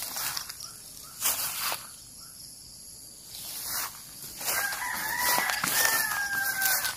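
Rustling steps through grass, then a rooster crows once, about four and a half seconds in: a drawn-out call in two parts lasting some two and a half seconds.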